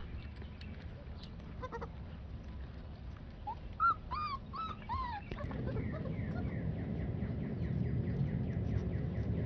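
Labrador puppy whining in a quick run of about five high, arching yelps, about four seconds in. A low rumble builds through the second half.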